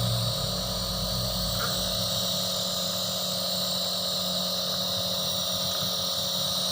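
Nebulizer compressor running steadily: a constant motor hum with a hiss of air.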